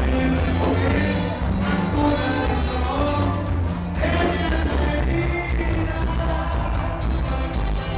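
Loud dance music with a singer and a steady beat.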